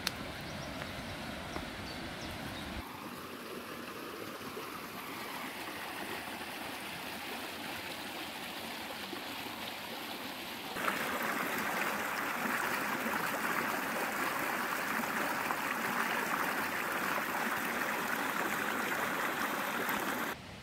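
Shallow woodland stream running over rocks, a steady rush of water. About eleven seconds in it steps up to a louder, brighter rush, where the water tumbles down a small cascade over mossy stones.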